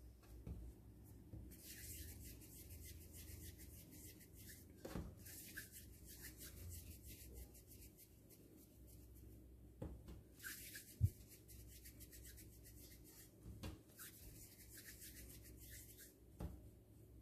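Faint rubbing of hands rolling pieces of semolina dough into balls between the palms, with a few light knocks.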